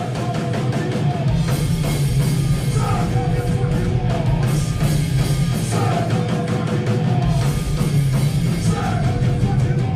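Fast, loud punk rock with distorted electric guitars and a drum kit.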